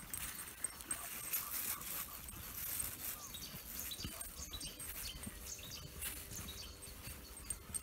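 Footsteps and paws brushing through long grass, with small birds chirping now and then in the background.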